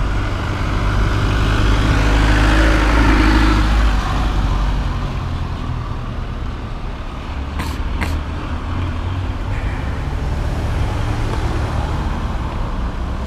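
Road traffic passing close by: cars and vans driving past with engine and tyre noise, loudest in the first few seconds, then a steadier traffic noise. Two sharp clicks come close together about eight seconds in.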